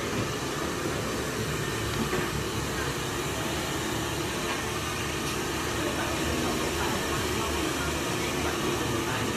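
Handheld hair dryer blowing steadily, a constant even rush of air with no change in speed.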